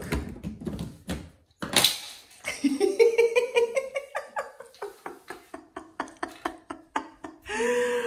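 African grey parrot vocalising: a rising call that holds for about two seconds, pulsing several times a second, followed by a run of short clicks, with a brief sharp rattle just before the call.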